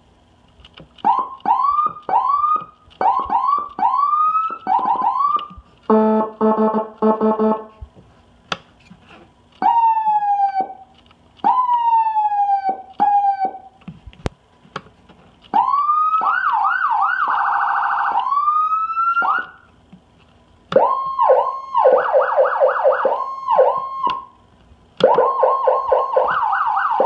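Whelen 295SLSA1 200-watt electronic siren being run through its tones in short stretches. It gives quick rising blips, then a harsh buzzing horn tone about six seconds in, then several falling sweeps. After that comes a long rising wail that breaks into a fast warble, and near the end rapidly alternating high and low tones.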